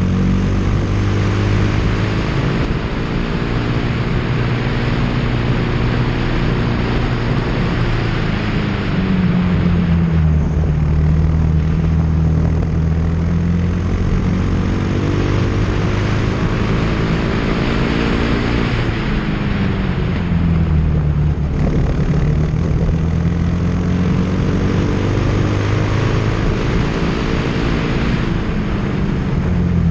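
Briggs & Stratton World Formula single-cylinder four-stroke kart engine heard onboard at racing speed. Its pitch climbs slowly on the straights and drops twice as the kart slows for corners.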